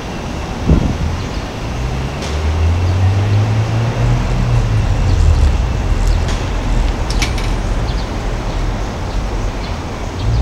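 Low rumble of road traffic, with engine noise slowly rising and falling in pitch and a few faint high ticks.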